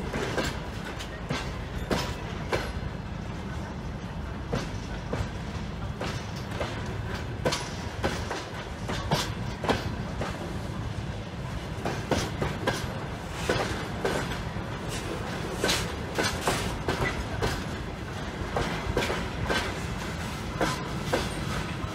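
Railway freight wagons, flatcars loaded with track-laying frames and track panels followed by hopper wagons, rolling past with an irregular series of sharp wheel clacks over rail joints above a steady low rumble.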